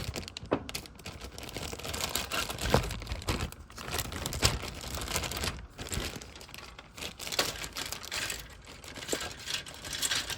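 Thin plastic parts bag crinkling and crackling as it is opened and handled, with many sharp clicks mixed in.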